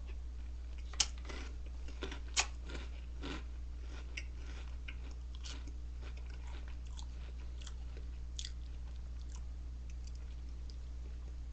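A person chewing a mouthful of crunchy Reese's Puffs cereal close to the microphone: a run of short crunches, with two sharper, louder clicks about one and two and a half seconds in, the crunching thinning out in the second half. A steady low electrical hum runs underneath.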